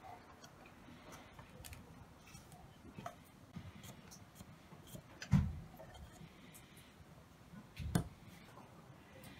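Quiet handling sounds of hands working over a pine tabletop: faint clicks and rustles, with two louder dull knocks about five and eight seconds in.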